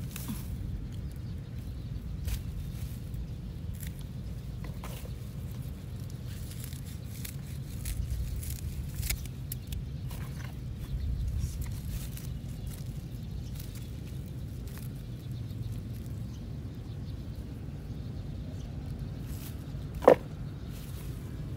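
Rustling and scattered small snips of lemongrass stalks being cut and handled, over a low steady rumble. About a second before the end comes one sharp, louder knock as the bundle of cut stalks goes into a plastic bucket.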